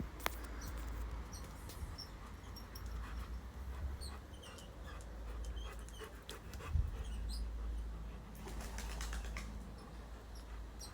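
Wind buffeting the microphone in a steady low rumble, with a sharp click just after the start and a thump about seven seconds in. Short faint high chirps are scattered over it.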